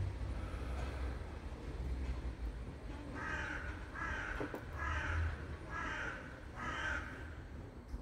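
A crow cawing five times in a row, about one caw a second, starting about three seconds in.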